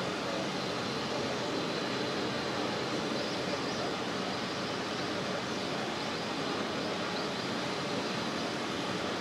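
Steady engine noise with a hiss over it, even in level throughout.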